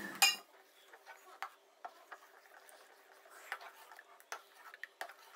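Steel spoon stirring thick urad dal porridge in a stainless steel pot, with faint scattered clicks and scrapes of the spoon against the pot.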